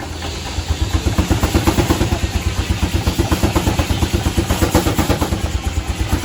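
1912 Case 40 hp steam traction engine running, its exhaust chuffing in a rapid, even beat that grows louder about half a second in.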